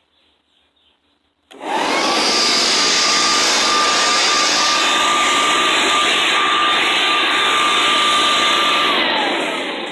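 Leaf blower switched on: its whine climbs quickly to a steady pitch over a loud rush of air, runs steadily, then winds down in falling pitch near the end.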